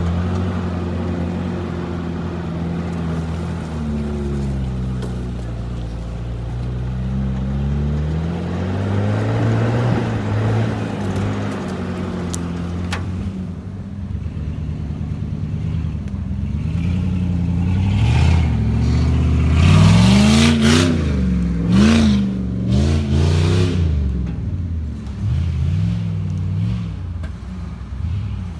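4x4 SUV engines pulling up a dirt forest trail, the revs rising and falling as the throttle is worked, with a run of quick, loud revs about two-thirds of the way through.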